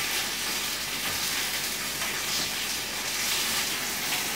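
Steady sizzling of a whole chicken browning in oil over low heat, a continuous even hiss.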